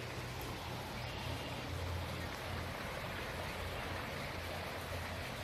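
Shallow creek running over rocks: a steady wash of water noise, with a low rumble that comes and goes underneath.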